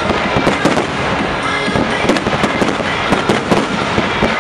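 Fireworks finale: aerial shells bursting in a rapid, unbroken string of bangs and crackles.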